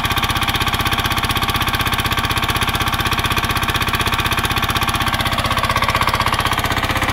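Lombardini diesel engine driving an irrigation water pump, running steadily with a rapid, even chugging beat. It has just been started and is running a little low, settling after drawing some air into it.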